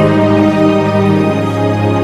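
Slow live worship-band music: held keyboard chords over a steady low bass note.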